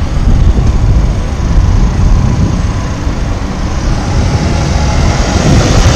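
Road traffic at a busy intersection, cars and motorcycles going by, under heavy wind rumble buffeting the microphone.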